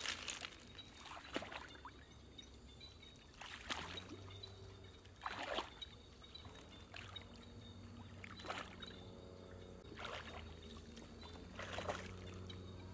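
Wading through shallow floodwater: a soft splash or slosh every one to two seconds as feet and hands move through the water, over a faint steady low hum.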